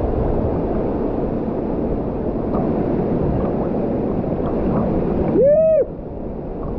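Steady rushing of waterfall water. About five seconds in, one short hooting call rises and falls in pitch, and the rushing drops away suddenly right after it.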